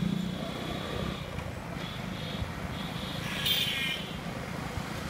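Road traffic: a steady low engine rumble with street noise, and a brief higher-pitched sound about three and a half seconds in.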